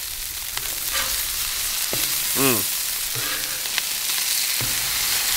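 Ground-beef burger patties sizzling steadily as they sear on the hot steel flat-top of a Blackstone 28-inch griddle, with a few sharp clicks and scrapes of a metal spatula on the griddle surface.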